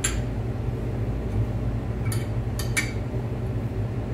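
Sharp metallic clinks of a steel wrench on the nut of a home-made threaded-rod installer tool as it is turned to press a harmonic balancer onto an LS engine's crankshaft: one at the start and three close together around two to three seconds in. A steady low hum runs underneath.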